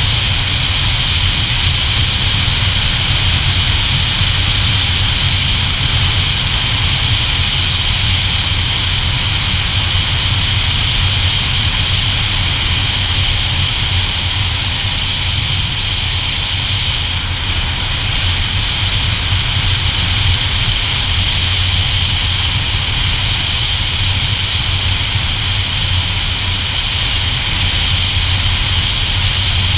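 Motorcycle riding at a steady cruise: engine running evenly under wind noise.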